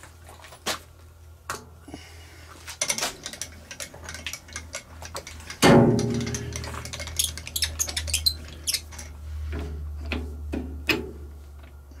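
Metal tools and parts being handled in a machine shop: scattered clicks and knocks, with one loud metallic clank about halfway through that rings briefly, over a steady low hum.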